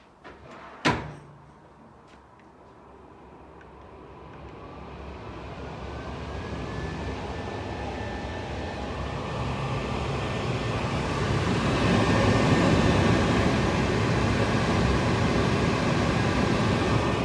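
Bosch DFR067A52 cooker hood switched on with a sharp click, then its extractor fan spins up: a thin motor whine rises in pitch over a few seconds while the rush of air grows steadily louder and settles into a steady run.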